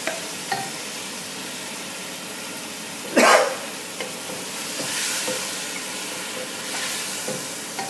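Lamb and its juice sizzling in a hot pot of onion-tomato masala while being stirred with a wooden spoon, a steady hiss that swells now and then. One brief loud burst about three seconds in.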